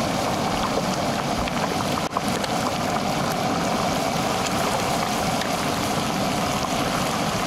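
Hot oil in a turkey fryer pot bubbling and sizzling steadily as a whole turkey is lowered in, with small pops where water on the bird meets the oil.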